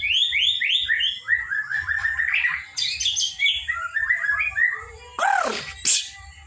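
Young white-rumped shama (murai batu) singing: a quick run of repeated rising whistled notes, about six a second, then a lower, busier warbling phrase, and two loud downward-sweeping calls near the end.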